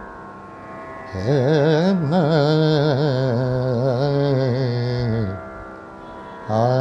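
Male voice singing a long, wavering, ornamented khayal phrase in raga Nupurdhwani over a steady drone. The phrase begins about a second in and ends about five seconds in, with only the drone between, and a new held note starts near the end.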